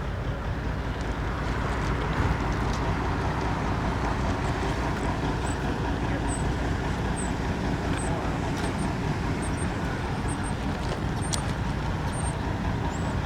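Steady vehicle rumble that builds up just before and then holds level, with faint short high chirps over it.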